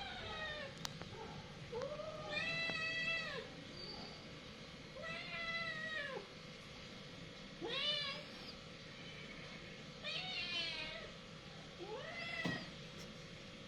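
Domestic cats yowling in a fight standoff: about six drawn-out calls a couple of seconds apart, each rising and then falling in pitch.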